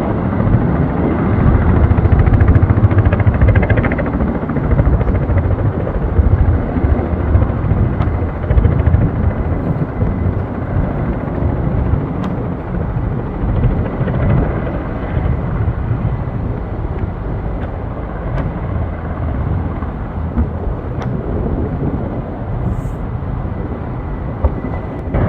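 KUH-1 Surion firefighting helicopter flying, a loud low rumble of rotor and engines, loudest a few seconds in and then slowly fading.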